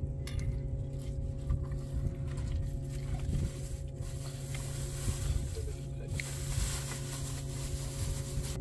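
A motor running steadily, a constant low hum with a fixed pitch.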